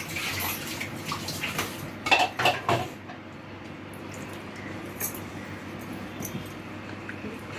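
A spoon knocking and scraping against an aluminium pressure cooker pot while stirring chicken in a watery masala, with liquid sloshing and pouring back from the ladle; the loudest knocks come about two seconds in. After that, a steady hiss with a few faint clicks.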